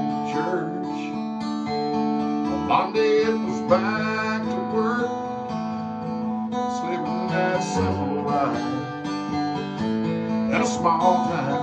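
Acoustic guitar strummed steadily, with a man's singing voice coming in and out over it.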